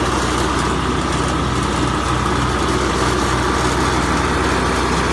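Engine of a piece of construction machinery running steadily at idle, with an even low drone and a constant whine above it.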